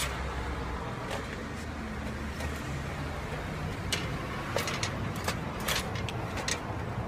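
Clicks and taps of a bicycle tyre and wheel rim being handled during a puncture repair, several in quick succession in the second half, over a steady low rumble of traffic.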